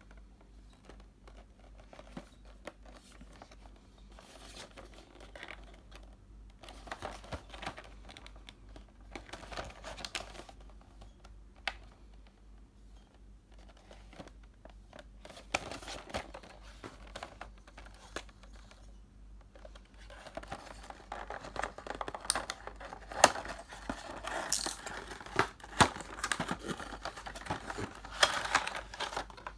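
Plastic wrapping on a card game starter deck being crinkled and torn open, with small clicks and taps of the box being handled; the crinkling gets busier and louder near the end.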